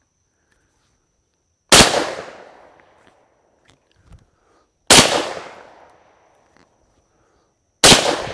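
Three shots from a TriStar Viper G2 .410-bore semi-automatic shotgun, fired about three seconds apart, each a sharp report dying away over about a second.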